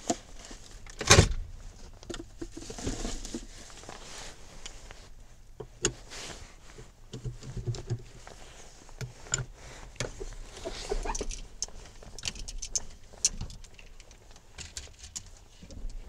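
Metal crank rod turned by hand in the spare-tire winch access between a minivan's front seats, lowering the spare: irregular metal clicks and rattles, with one loud knock about a second in.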